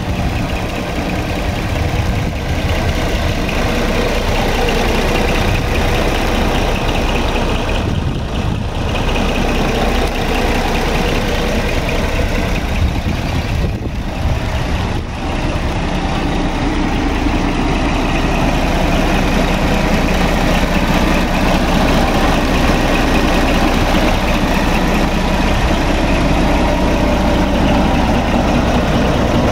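Scania R420 tractor unit's 12-litre inline-six diesel engine idling steadily.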